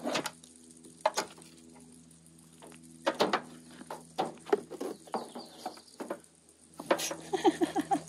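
Handling noise from a solar panel's cable being worked at a car door window: a few sharp clicks and light scrabbling, busier near the end, over a faint steady hum.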